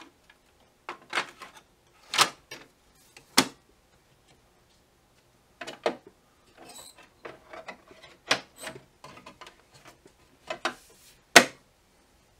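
Plastic clicks and clunks from an HID Fargo DTC4250e ID card printer being loaded with ribbon and cards: the card cassette and front cover are handled and snapped into place. About a dozen sharp knocks with light rustling between them, the loudest near the end.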